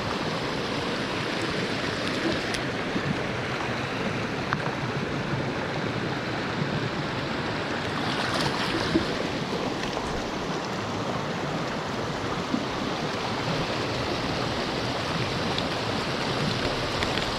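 Creek water rushing steadily, an even unbroken hiss of flowing water, with a few faint brief clicks now and then.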